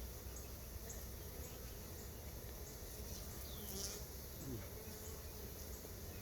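Honeybees from a freshly installed package buzzing steadily around the open hive, with a few single buzzes gliding down in pitch.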